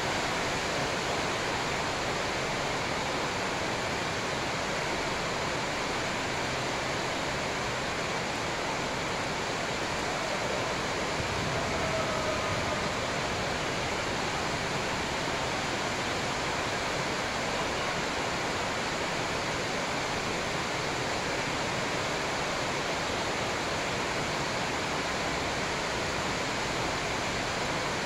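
A steady, even rushing hiss, with no separate shuttlecock hits standing out above it.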